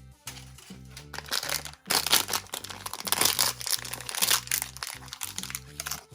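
Packaging crinkling and rustling as a toy accessory is unwrapped, loudest from about a second in until near the end, over background music with a steady bass line.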